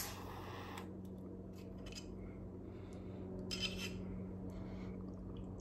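A lighter clicks once, followed by a brief hiss as the small glass pipe is drawn on, then light clicks and clinking as the glass pipe and lighter are handled, loudest about three and a half seconds in. A steady low hum runs underneath.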